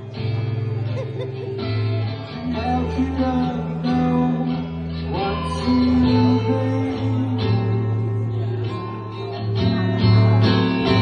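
Guitar-led song music: strummed guitar chords with sustained bass notes, changing chords every second or two.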